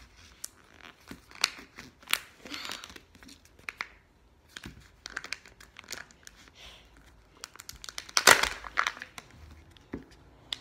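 Kinder egg's wrapper crinkling and tearing as it is peeled off by hand, in irregular crackles with the loudest burst about eight seconds in.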